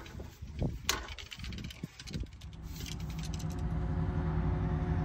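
Clicks and clinks of a fishing rod and reel being handled and set into a metal rod holder, then from about two and a half seconds in a steady engine drone with a low hum that grows slightly louder.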